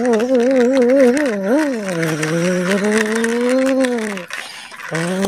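A person's voice imitating a truck engine for a pushed plastic toy dump truck: a warbling hum that wobbles about three times a second, then a long held drone that rises gently and drops away about four seconds in, with a new drone starting near the end.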